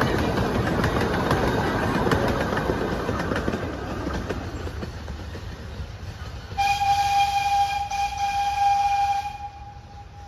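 Miniature train's passenger cars rolling past on the rails with clicking wheels, fading away over the first few seconds. About six and a half seconds in, the train's horn sounds one steady note for nearly three seconds, then stops, leaving a faint lingering tail.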